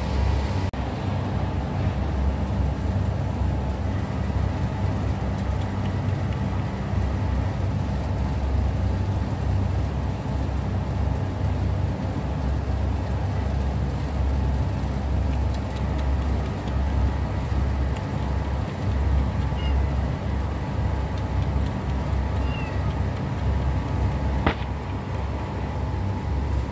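Steady low rumbling background noise, with a few faint short high chirps in the last third.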